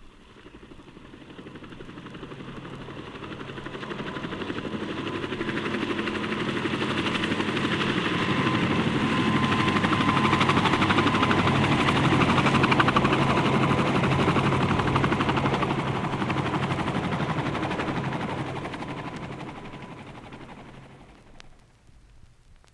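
Helicopter flying past: the rapid rotor chop swells from faint to loud over about ten seconds, peaks, then fades away, with a steady whine running under it.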